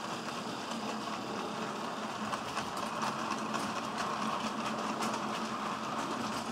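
Model train running on track: a steady hum with irregular clicking of the wheels over the rails.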